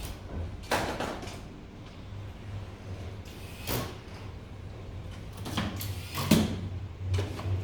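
A few short clatters and scrapes over a steady low hum, with the loudest clatter about six seconds in.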